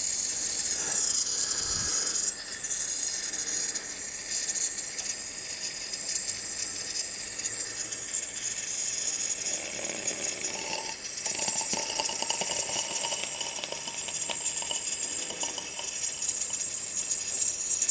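Gas torch burning with a steady hiss on a soft, bushy flame, heating copper end caps for soft soldering.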